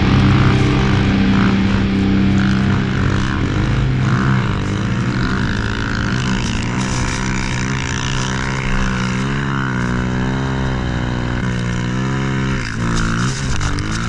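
Snow bike engine running under load in deep snow, its revs rising and falling as the throttle is worked.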